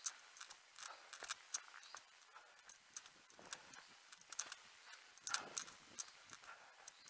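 A runner's footfalls picked up by a head-mounted action camera: a fairly faint, uneven series of sharp strikes, several a second.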